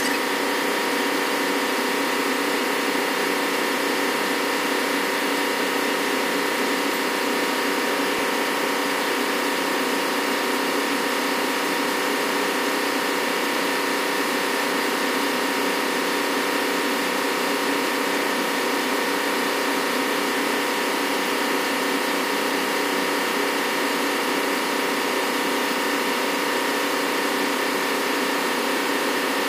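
Steady drone of running machinery in a ship's engine room: a constant hum of several steady tones over a hiss, unchanging throughout.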